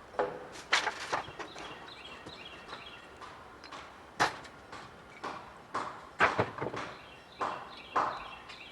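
A string of irregular knocks and clatters, a dozen or so unevenly spaced over several seconds, with faint high chirps in the background.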